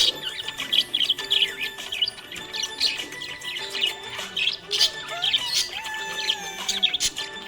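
Budgerigars chirping and squawking in quick, high-pitched bursts, with background music underneath.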